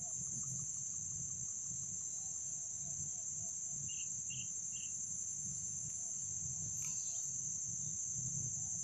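Steady, high-pitched insect chorus, a continuous trilling drone, over a low background rumble. Three short faint chirps sound about four seconds in.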